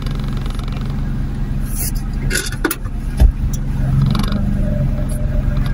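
Car engine idling, a steady low hum heard inside the cabin. A few light knocks come about two and a half seconds in, and one louder thump follows just after three seconds.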